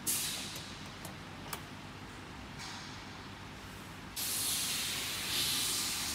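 A few light clicks from the CO2 laser machine's control panel, then about four seconds in a steady hiss of rushing air starts abruptly: the air-assist pump blowing through the laser head's nozzle.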